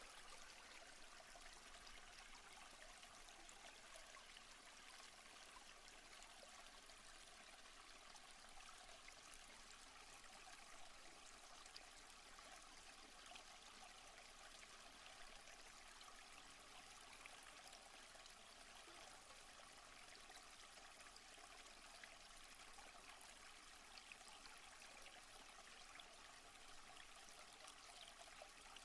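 Faint, steady rush of a stream and waterfall.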